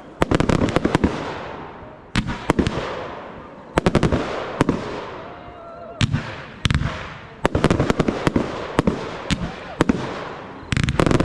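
Aerial fireworks bursting in volleys: clusters of sharp bangs every one to two seconds, each cluster fading away before the next.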